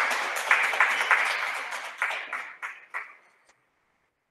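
A small group applauding, the clapping thinning to a few scattered claps and dying away about three and a half seconds in.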